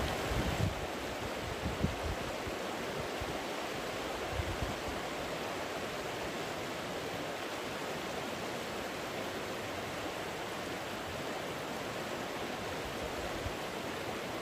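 Steady rush of flowing water, even and unbroken, with a few brief low thumps in the first few seconds.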